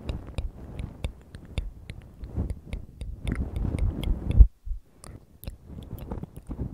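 Feather puff of a bamboo ear pick brushing and scratching against a microphone's grilles: a soft, close rustle laced with many small crackles and clicks. A low thump comes about four and a half seconds in, with a short lull before the rustling picks up again.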